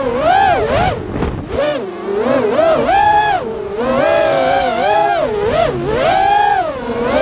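Racing quadcopter's brushless motors and propellers whining, the pitch swooping up and down rapidly with each throttle change, with a few longer held high stretches.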